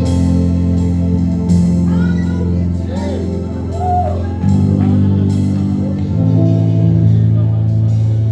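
Music: sustained low chords that change about four and a half and six seconds in, with a gliding, wavering melodic line above them in the middle and light ticking percussion.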